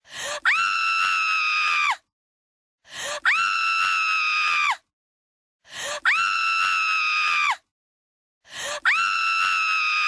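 Jump-scare scream sound effect, looped: the same high-pitched two-second scream plays four times with short gaps, each opening with a brief cry and a click, then a held shriek that drops in pitch as it cuts off.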